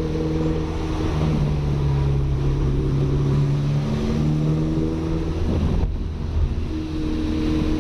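Audi A3 1.8T 20-valve turbocharged four-cylinder engine running at part throttle while driving, its note shifting down and up a few times, over a steady hiss of tyres on a wet road.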